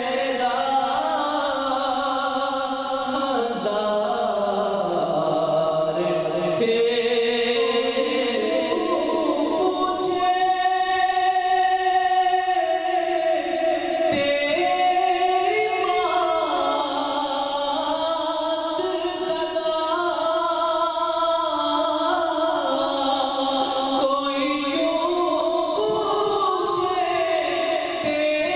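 A man sings a naat, an Islamic devotional poem, solo and unaccompanied into a microphone, in long drawn-out melodic phrases that glide between notes.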